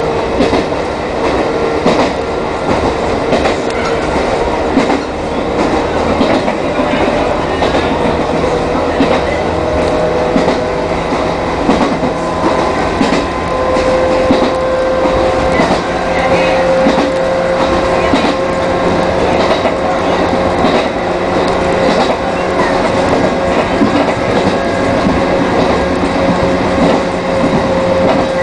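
Chichibu Railway 1000 series electric train (ex-JNR 101 series) running along the line. Its traction motors give a steady whine that edges up in pitch, and the wheels click over the rail joints.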